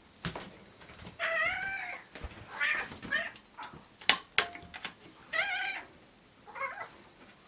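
A domestic cat calling four times in long, wavering meows, answering a stray cat outside. Two sharp clicks come near the middle.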